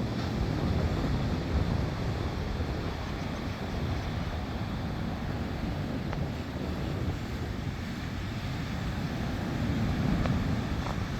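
Sea surf washing onto a beach, a steady rushing noise mixed with wind buffeting the microphone, swelling slightly near the end.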